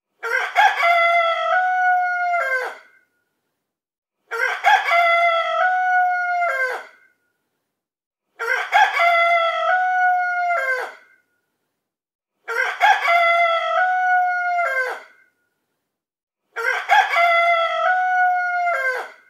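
Rooster crowing alarm: the same cock-a-doodle-doo recording repeats five times, one crow about every four seconds with silence between, each ending on a falling note. It signals that the countdown timer has run out.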